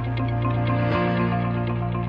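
Background music: sustained electronic chords over a light ticking beat, the chord changing about a second in.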